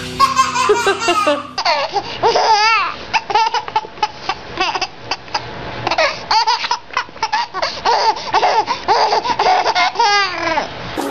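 A baby laughing hard, one fit of high giggles and belly laughs after another, starting about a second and a half in.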